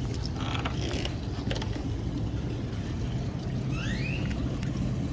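Boat's outboard motor idling steadily with a low hum. A short bird call rises in pitch about four seconds in.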